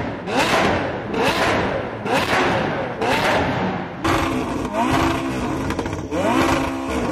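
Supercar engines being revved in repeated sharp blips, each a quick rise and fall in pitch, about one a second. About four seconds in the sound changes abruptly to another car revving, with a steadier engine note between its blips.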